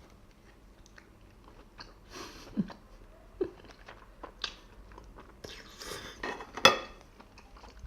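Close-up eating sounds: a person chewing and biting into steamed scallop meat in spicy sauce, with wet mouth smacks and scattered small clicks. The clicks get busier in the second half, and the loudest, a sharp click, comes a little before the end.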